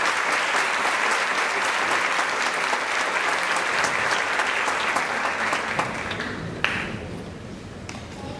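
Audience applause, dense clapping that thins out and dies away over the last few seconds. A single sharp knock sounds near the end as the clapping fades.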